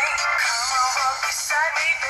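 Sony Ericsson W950i ringtone playing: a musical tune with a gliding, voice-like lead melody. It sounds thin, with no bass.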